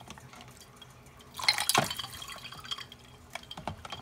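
Ice water splashing as a plastic cup scoops it from a tub and pours it over a glass bottle: one main splash about a second and a half in, then a few small drips and clicks.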